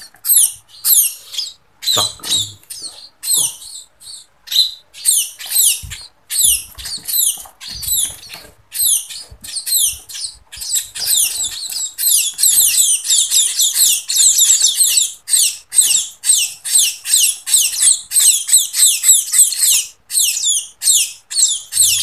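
Fledgling munias begging for food: a rapid, unbroken run of high, thin, downward-sliding cheeps that grows denser and louder about halfway through. A few soft low thumps come in among them.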